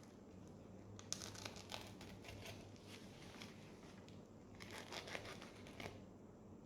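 Packaging being handled: faint crinkling and rustling in two bursts of quick crackles, the first about a second in and the second near the end.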